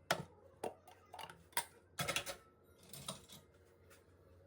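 Irregular sharp clicks and light clatters of small hard objects being handled, about six over four seconds, with a quick cluster around the middle.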